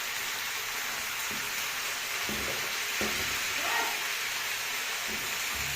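Chicken pieces sizzling as they fry in hot oil in a pan: a steady hiss.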